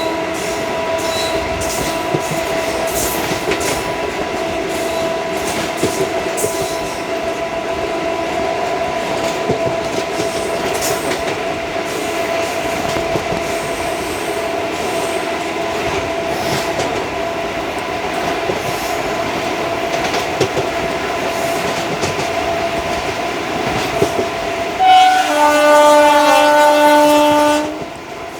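ICF passenger coach running along the track: a steady rumble with a thin steady whine and scattered rail-joint clicks. Near the end the WAG5 electric locomotive sounds its horn in one loud blast of about three seconds.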